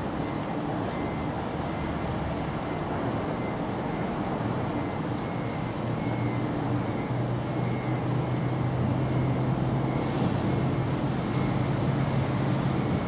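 Steady low rumble of road traffic, with a vehicle engine hum that grows louder about halfway through.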